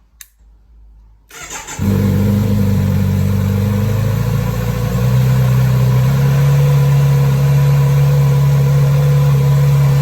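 Kawasaki Z900RS Cafe's inline-four engine cranked by the starter and catching after about a second, then idling steadily, its idle rising a little about halfway through. It is being run on fresh oil after an oil change, so the level can be checked afterwards.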